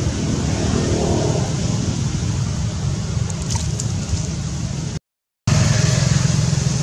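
Steady low rumbling background noise with no clear pitch or rhythm. It drops out completely for about half a second at an edit a little after five seconds in.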